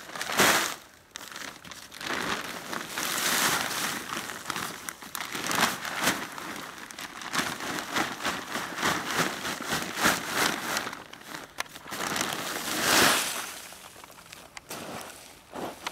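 A plastic builder's bag rustling and crinkling as broken brick and stone rubble is tipped and shaken out of it, the rubble clattering as it pours onto the road. The loudest pours come about half a second in and about thirteen seconds in.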